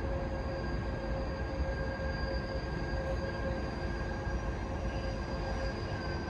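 DB Class 185 (Bombardier TRAXX) electric locomotive running: a steady low rumble with several held whining tones over it.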